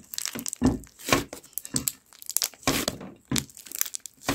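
Bubbly slime being worked by hand, its trapped air pockets popping in an irregular run of crackles and snaps.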